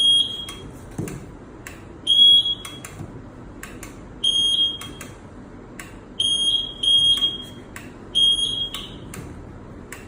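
Tower signal light's buzzer sounding a series of high-pitched beeps, each about half a second long, at uneven spacing, with short sharp clicks in between.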